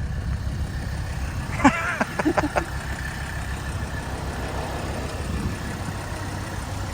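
1983 Mercedes-Benz 300CD's 3.0-litre turbodiesel inline-five idling with a steady low rumble. About two seconds in, a brief cluster of a squeak and several sharp clicks.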